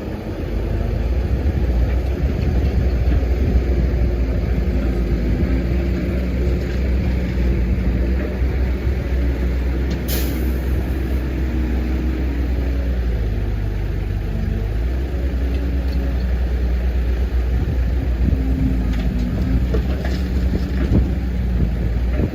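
Diesel engine and hydraulics of a Case 145D excavator running steadily under load while it works, the engine note shifting a little. A brief hiss about halfway through.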